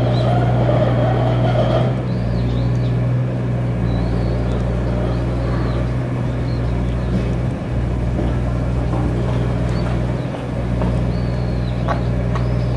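Backhoe's diesel engine running with a steady low drone that dips briefly a few times, with faint high chirps over it.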